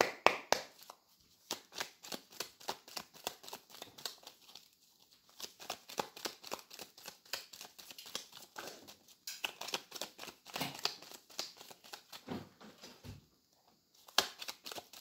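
A deck of cards being shuffled by hand: a quick run of soft card slaps and flicks, several a second, with a few short pauses.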